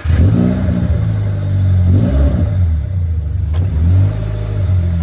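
Subaru BRZ's flat-four engine, fitted with a Borla S-Type exhaust, catching and flaring up as it starts, then revved twice.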